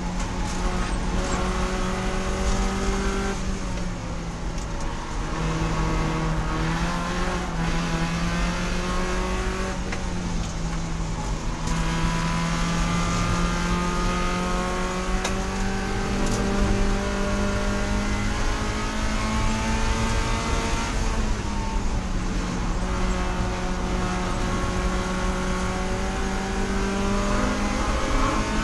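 Spec Miata race car's four-cylinder engine running hard, its pitch climbing steadily and then dropping sharply several times as the car shifts or lifts through the lap.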